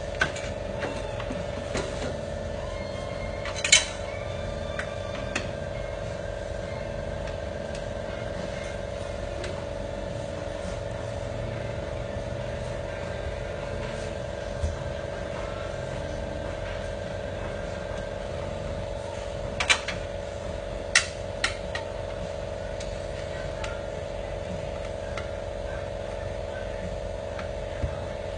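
Steady mechanical hum with a few sharp knocks: one about four seconds in and three close together later on.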